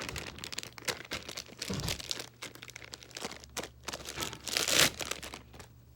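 Stiff, over-activated slime being squeezed and pulled apart by hand, crackling and popping irregularly, with a louder squelching stretch near the end.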